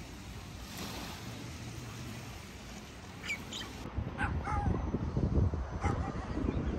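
Small waves washing onto a sandy beach. After a cut about four seconds in, wind buffets the microphone and a few short animal calls sound, about a second apart.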